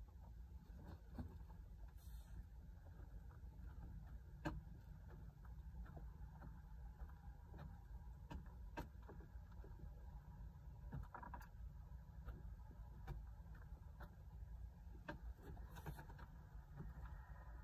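Hens roosting on a wooden perch, shifting and preening, with scattered faint clicks and taps of beaks and claws over a steady low hum; no clucking.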